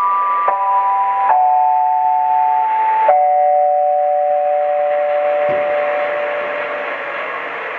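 Medium-wave AM radio reception with steady hiss, carrying a sequence of held electronic tones that step to new pitches every second or two. It ends in a long two-note tone that fades out near the end, leaving only the hiss.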